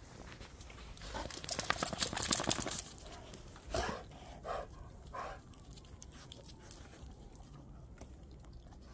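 A dog eating snow: a quick run of crisp crunches for about a second and a half, then three short breathy sounds from the dog a little apart.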